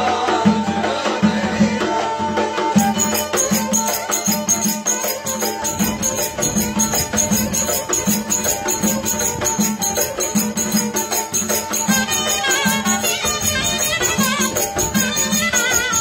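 Live Kastamonu folk dance tune: a kemane (small bowed folk fiddle) plays the melody over a davul (large bass drum) beating steadily about twice a second.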